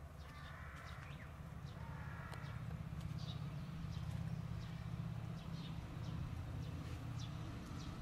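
Wild birds calling outdoors: many short, high falling chirps scattered throughout, with two brief buzzy calls in the first couple of seconds, over a low rumble that grows louder.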